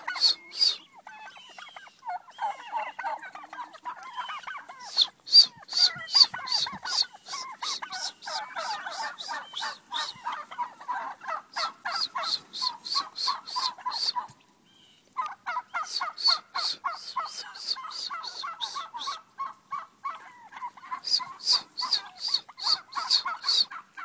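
A flock of domestic turkey toms gobbling over and over, several at once. Through it, runs of a sharp, high, rhythmic sound repeat about three times a second, start and stop several times, and the turkeys keep answering.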